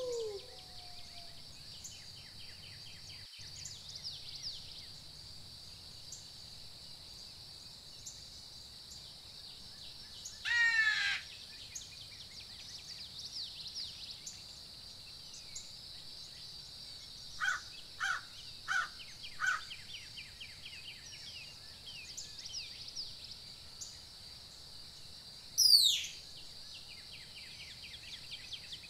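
Outdoor nature ambience: a steady high-pitched insect drone, with bird calls on top. There is a quick run of falling notes about ten seconds in, four short caw-like calls in a row partway through, and a sharp falling whistle near the end.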